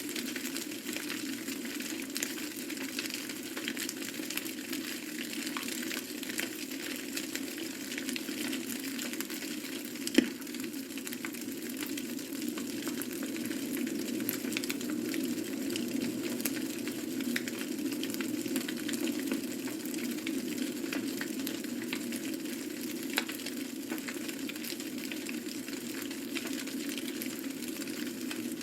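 Open fire crackling, with a steady hiss and many small scattered pops; a sharper pop about ten seconds in and another near the end.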